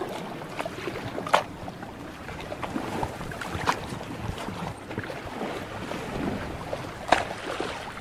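Sea water lapping and sloshing steadily, with three sharper splashes standing out about a second and a half, three and a half seconds and seven seconds in.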